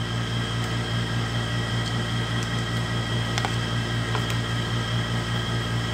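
Steady motor hum of a room appliance, with a few faint light clicks.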